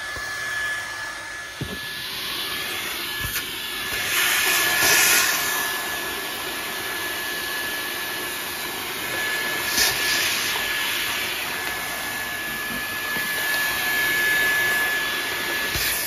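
Levoit cordless stick vacuum running with a crevice nozzle: a steady high motor whine over the rush of suction, the rush swelling and easing a few times.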